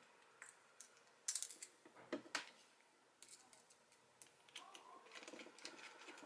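Faint clicks and taps of a small bit screwdriver and its metal bits as the reservoir top-cap screws of a Hope brake lever are fitted and tightened. The sharpest clicks come about one to two and a half seconds in, followed by a run of lighter ticks.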